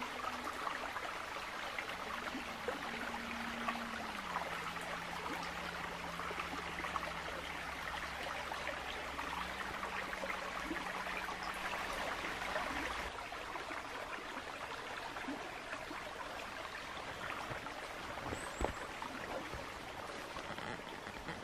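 Steady rush of running water with a fine patter through it. Underneath, a low held tone shifts pitch a few times and stops about two-thirds of the way through.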